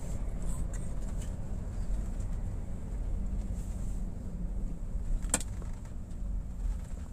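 Steady low rumble of engine and road noise inside a moving vehicle's cabin, with one sharp click about five seconds in.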